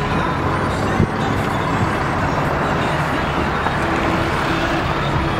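6.7L Cummins turbo diesel engine of a 2016 Ram 3500 idling steadily.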